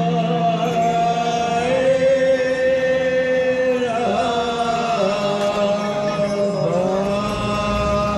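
Singers chanting a slow devotional song in long held notes that step from pitch to pitch every second or two, with a falling glide near the end.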